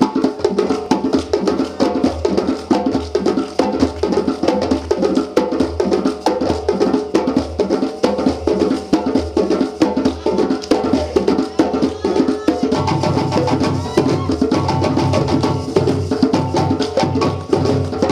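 West African djembe drums played by an ensemble in a fast, dense traditional Malinke rhythm. A little past two-thirds of the way through, the deep drum part grows heavier and fuller.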